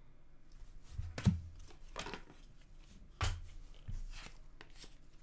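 Trading cards being handled and sorted by hand: a few soft taps and rustles about a second apart, with light sliding between them.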